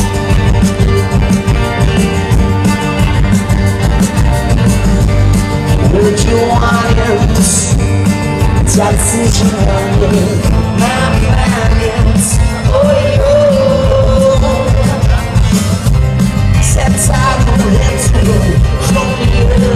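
A rock band playing live through the stage PA, guitars over a steady beat, heard from within the audience.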